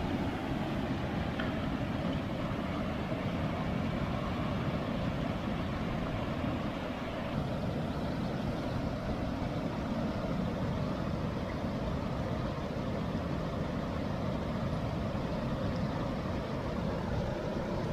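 Steady rushing of a rocky creek over ledges and small cascades, a continuous low rush with no breaks.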